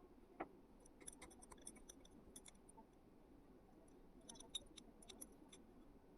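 Faint scattered light clicks and ticks in two short clusters, with one slightly louder tap about half a second in, over near silence.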